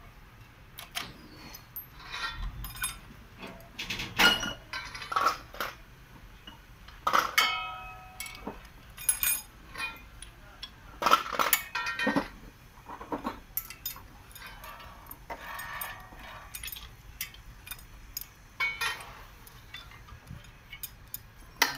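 Irregular sharp metallic clinks and taps of steel engine parts and hand tools being handled, as push rods are fitted into a truck diesel engine's cylinder head.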